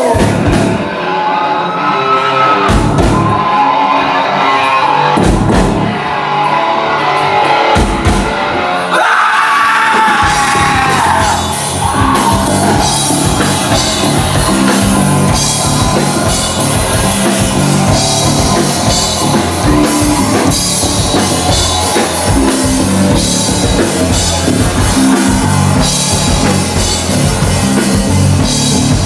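Live rock band playing: sung vocals over a few sparse drum hits, then the full band with drums and bass comes in about ten seconds in and drives on steadily.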